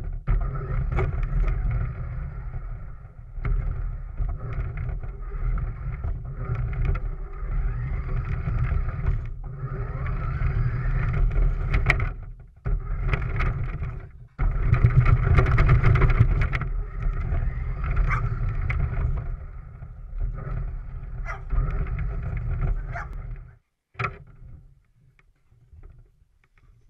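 Remote-control car's motor and drivetrain running, heard through a camera mounted on the car as it drives over snow and grass. It cuts out briefly twice and stops suddenly a few seconds before the end.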